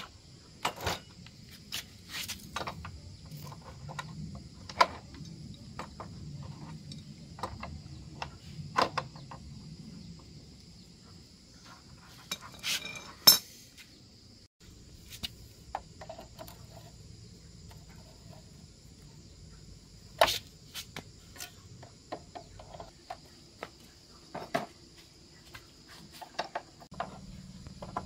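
Scattered clinks and knocks of metal hand tools and parts being picked up, handled and set down on concrete, with a steady high insect buzz behind. The sharpest knocks come about thirteen and twenty seconds in.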